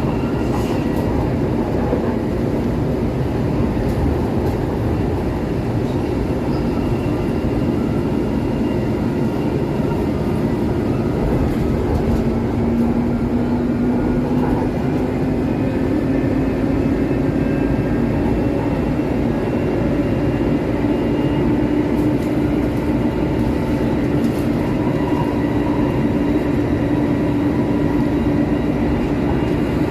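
MRT-3 RT8D5M CKD Tatra light rail vehicle running with a steady rumble from its bogies. Through the second half a low motor whine climbs slowly in pitch as the train gathers speed.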